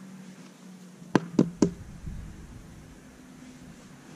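A faint electric motor hum, the home-made battery chainsaw's motor winding down, fades out, then three sharp knocks come in quick succession about a second in.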